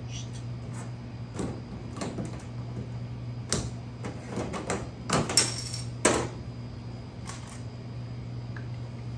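Glass soda bottles being uncapped with a bottle opener and handled on a stainless steel counter: a run of separate sharp clicks and knocks, thickest about halfway through, over a steady low hum.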